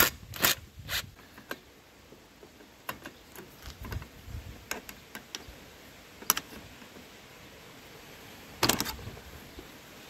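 Metal clicks and clinks from a tool and loose clutch parts being handled while a brushcutter's clutch is taken apart. There is a quick run of loud clicks in the first second, then scattered light clicks, and a short clatter near the end.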